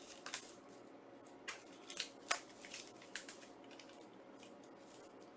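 Light handling noises from a Blu-ray steelbook case and its packaging: a scatter of small clicks and taps, mostly in the first three and a half seconds, then only faint room tone.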